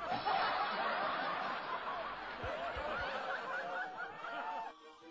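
Laughter from many people at once, snickering and chuckling: a comedy laugh track. It fades about four and a half seconds in as a few music notes begin.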